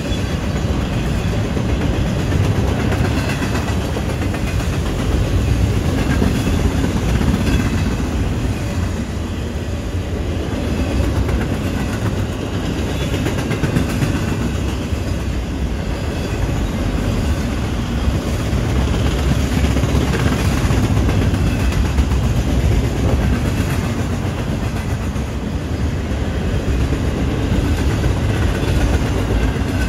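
Double-stack container cars of a BNSF freight train rolling past steadily, their steel wheels running on the rails.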